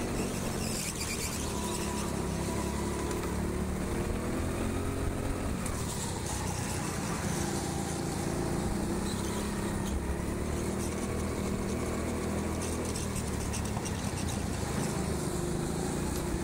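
Onboard sound of a rental go-kart running flat out on an indoor track. Its motor note rises and falls steadily with speed through the corners, with short rattles and clicks from the chassis.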